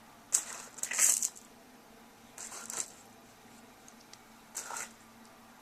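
A few short rustling handling noises, about four in all, over a faint steady hum.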